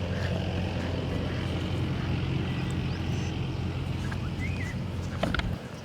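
A steady low engine hum that stops abruptly near the end, with a short high chirp shortly before it stops.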